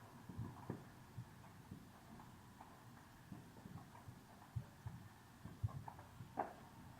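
Distant fireworks going off: faint, irregular low thuds, with a couple of louder, sharper bangs near the end.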